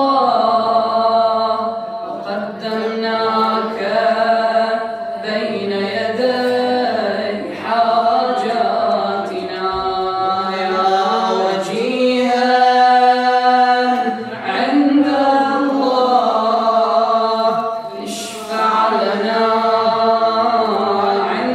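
A young man's solo voice chanting an Arabic supplication in a slow, melismatic melody, in long phrases of held, ornamented notes with short breaths between them.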